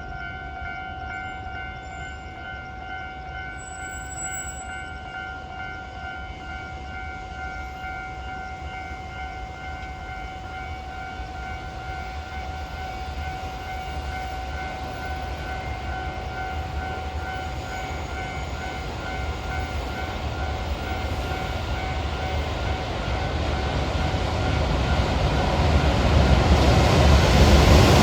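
Level-crossing warning bell ringing steadily as a repeating two-tone ding. Under it, the rumble of an approaching EH500 electric locomotive and its container train grows steadily louder over the last several seconds.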